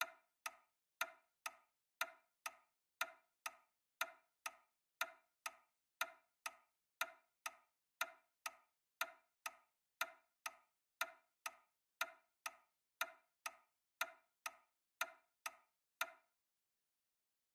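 Clock ticking at two beats a second, a louder tick alternating with a softer tock, then stopping about a second and a half before the end.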